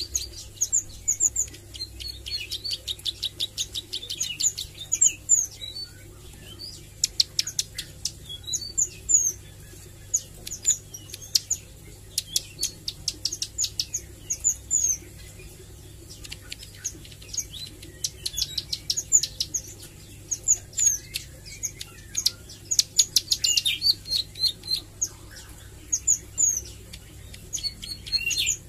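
A caged ciblek sawah (a prinia) singing in bursts of rapid, high, dry repeated notes mixed with short chirps, with pauses of a second or two between phrases. It is a bird still learning its song and its rapid-fire 'nembak' notes.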